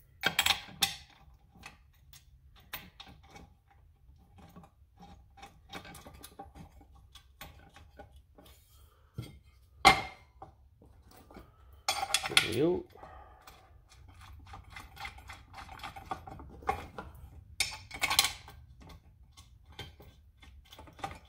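Steel angle-iron brackets and bolts being handled and fitted against an electric hoist's sheet-metal housing: scattered metal clinks and taps. There is a sharp clank about ten seconds in and a longer grating scrape around twelve seconds.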